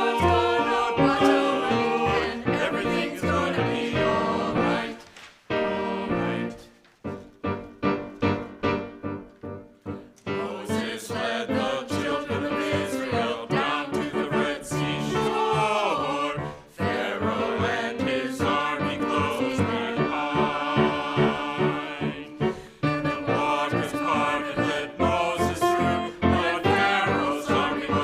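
Church choir singing an anthem with instrumental accompaniment. About seven seconds in, the voices drop out for a few seconds, leaving only single struck accompaniment notes, then the choir comes back in.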